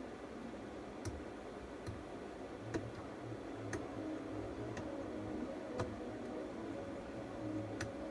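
Small sharp clicks of hand tools on a phone-repair bench, about one a second at uneven intervals, over a steady low hum from the bench equipment.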